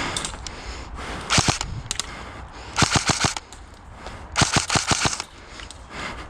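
Airsoft gun firing three short bursts of rapid sharp pops, about a second and a half apart. The first burst is the shortest and the last is the longest.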